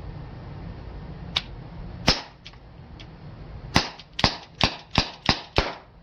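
Magazine-fed airgun firing: a single sharp shot, then a quick string of six shots at about three a second, with a few faint clicks between them.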